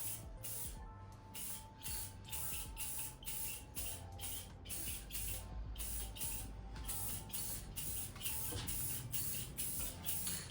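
Clear coat being sprayed onto a bike frame in short, rapid hissing bursts, about three a second.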